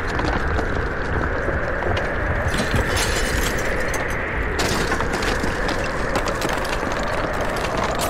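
Small geared electric motor of a miniature DIY machine running steadily, with a dense rattling and clicking that gets busier about two and a half seconds in.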